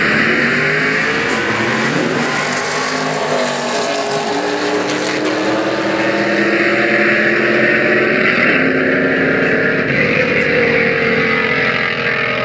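Two drag-racing cars launching from the line and accelerating hard down the strip side by side. Their engine notes climb and drop back again at each gear change.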